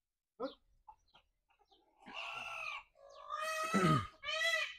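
Sultan rooster squawking in alarm as it is caught by hand: a short call, then about two seconds in a run of harsh squawks, the last two louder and more ringing.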